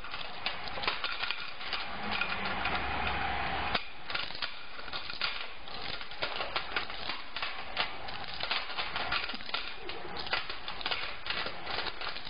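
A baby's hands slapping and pushing plastic toys on a metal serving tray: irregular taps and clattering knocks. A steady hum lies underneath until about four seconds in.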